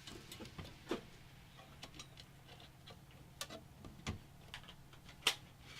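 Scattered light clicks and taps over a faint steady hum, with one sharper click about five seconds in.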